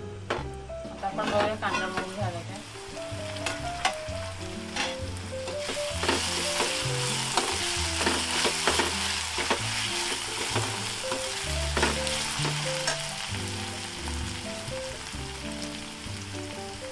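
Chopped onion and tomato sizzling in oil in a non-stick frying pan while a steel spoon stirs them, scraping and tapping against the pan. The pan lid is lifted off near the start, and the sizzle grows louder from about six seconds in.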